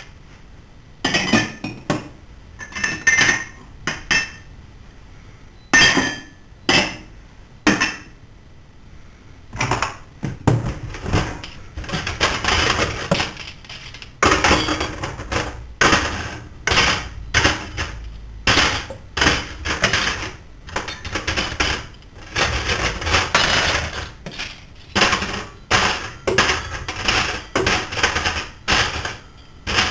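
Kitchen clatter of dishes, cutlery and glassware knocking and clinking: separate ringing clinks for the first several seconds, then denser, near-continuous rattling from about ten seconds in.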